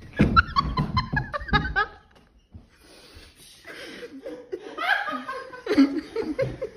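A woman laughing hard in rapid, shrill bursts, a hyena-like cackle. It stops for about a second and a half, then breaks out again.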